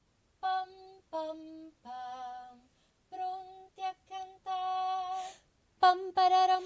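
A woman singing an unaccompanied melody in short phrases of held notes with brief pauses between them, growing louder with quicker notes near the end.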